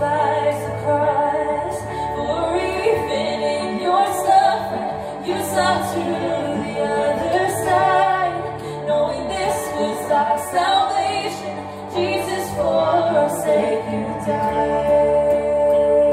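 Worship song: a woman's voice singing with instrumental accompaniment, ending on a long held note near the end.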